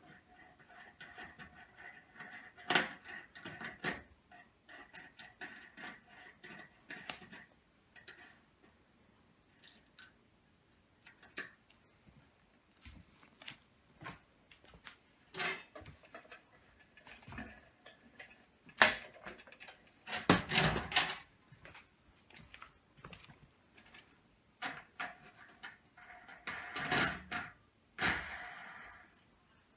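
Irregular clicks, taps and light metallic rattles of screws and hardware being handled while a fluorescent light fixture is fastened up, with a few louder knocks.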